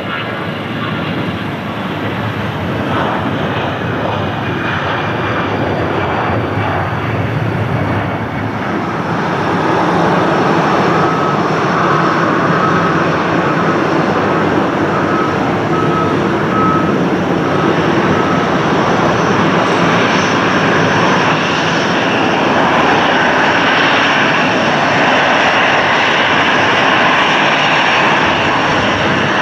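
Airbus A320's twin jet engines running at taxi power as the airliner taxis, a steady jet noise that grows louder about a third of the way in and then holds.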